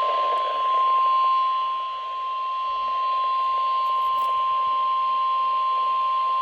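NOAA Weather Radio 1050 Hz warning alarm tone: a single steady, unbroken pitch held throughout, over radio hiss. It signals that a warning message is about to be broadcast.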